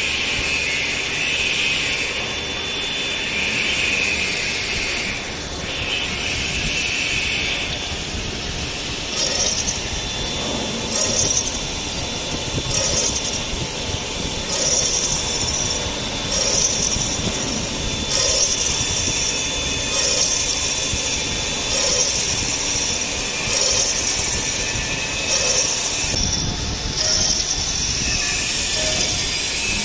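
Automatic screw head slotting machine (SRD5) running as it cuts slots in M2x4mm countersunk screw heads. It gives a steady mechanical clatter with a high hiss over the first several seconds, then a regular cycle that repeats about every two seconds.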